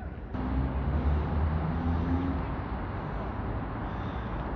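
Town-centre traffic: a motor vehicle's engine rumbling low, loudest in the first couple of seconds, over steady street noise.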